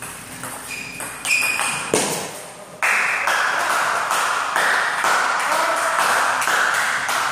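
Celluloid-plastic table tennis ball struck by paddles and bouncing on the table in a short rally, a few sharp ticks and pings. About three seconds in, a loud steady rushing noise starts abruptly and carries on.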